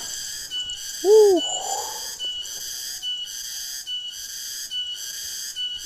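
Forest insects in a high, pulsing chorus that throbs about once a second, with a thin steady whistling tone running through it. About a second in, a single short hooting call rises and falls in pitch, and another hoot begins at the very end.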